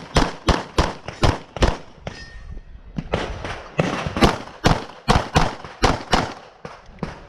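Rapid pistol fire: a string of sharp shots, about three a second, with a gap of about a second near two seconds in, then another fast string of shots.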